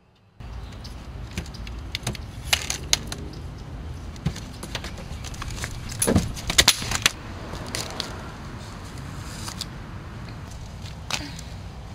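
Metal crutches clicking and rattling as someone gets out of a car and stands up on them, over a steady low background rumble. There are many sharp clicks and knocks, with the loudest cluster about six to seven seconds in.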